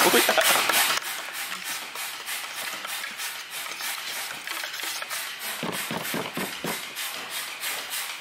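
Compressed-air blow gun hissing, loudest in the first second, then a steadier, quieter hiss, as shredded drive-belt debris is blown out of the engine's clogged oil strainer.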